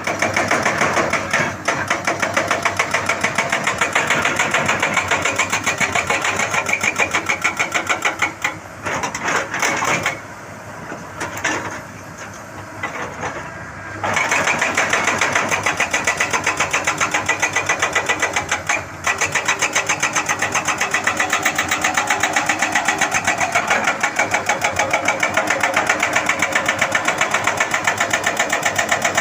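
Excavator-mounted hydraulic breaker hammering at a rapid, even rate, with the excavator's engine running beneath. The hammering stops for a few seconds about a third of the way in, leaving the engine, then resumes.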